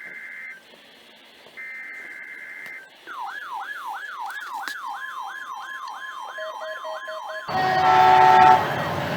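Two long electronic beeps, then an electronic siren in a fast yelp, rising and falling about three to four times a second for some four seconds. About seven and a half seconds in, it is cut off abruptly by a louder, denser sound.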